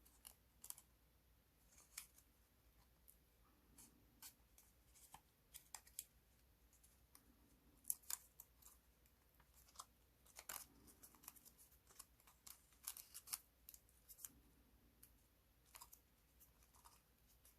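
Faint, scattered crackles and crinkles of a square of origami paper being handled and creased, with a denser run of crackling about 8 seconds in and again around 10 to 13 seconds, as a small step fold is worked into the paper.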